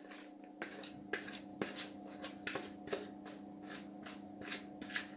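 Faint handling sounds of a plastic mixing bowl being held upside down and tipped: soft, irregular clicks and light knocks, about three a second, over a faint steady hum.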